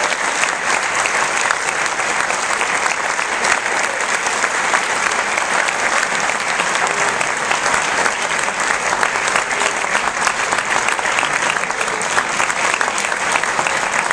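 An audience applauding, a dense, steady clapping that keeps up throughout.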